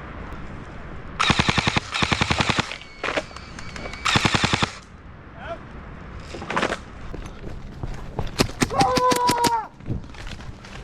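Airsoft guns firing bursts of rapid full-auto shots: a long burst about a second in, a shorter one about four seconds in, a few single shots between, and another rapid string near the end.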